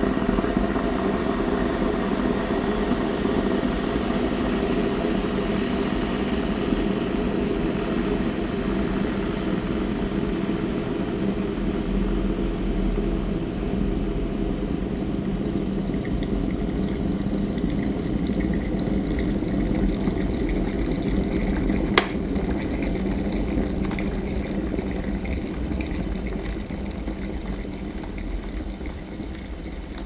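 Electric kettle heating water toward the boil: a steady rushing, bubbling noise with a low hum. A single sharp click comes about two-thirds of the way through, and the noise then slowly fades.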